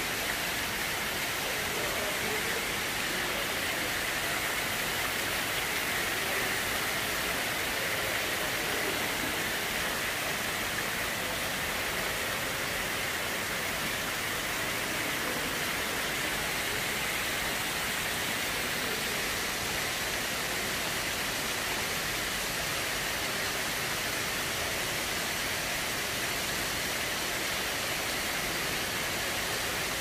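Water falling steadily over an artificial rock garden waterfall and splashing into a shallow pool: a constant, even rush.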